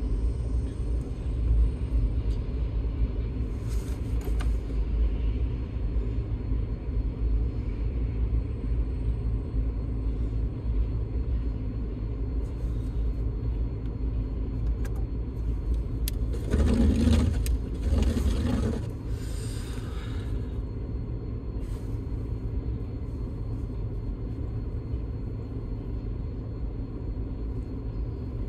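Steady low vehicle rumble heard inside a waiting car's cabin. A louder, noisier surge comes about 16 seconds in and eases off by about 19 seconds.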